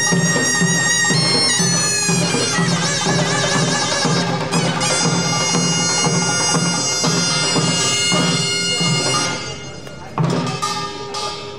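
Pungmul band playing: a taepyeongso (Korean shawm) sounding a loud, nasal, wavering melody over a steady beat of janggu and buk drums and kkwaenggwari gong clangs. Near the end the reed and drumming fall away, leaving a few separate sharp strokes.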